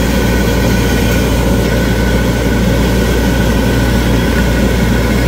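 Grain-roasting machine running steadily, stirring Job's tears and sesame seeds as they roast together: a constant low motor hum under a dense, even rushing of tumbling grain.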